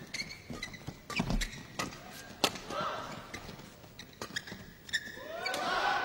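Badminton rally: sharp racket strikes on a shuttlecock, one every half second to a second, with shoes squeaking on the court near the end.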